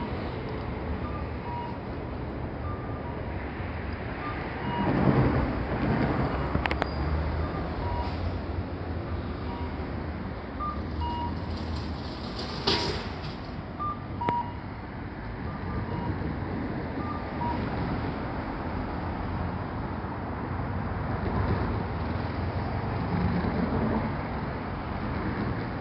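Steady low rumble of a city tram and street traffic, with faint short high beeps now and then and a brief sharp clack about 13 seconds in.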